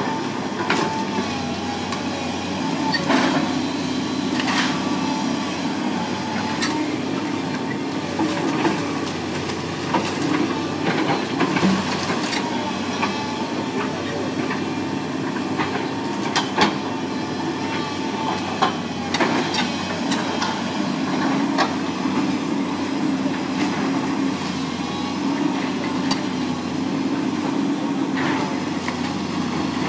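A house being torn down: a heavy machine's engine runs steadily while timber cracks, splinters and knocks again and again, with the sharpest crack about sixteen seconds in.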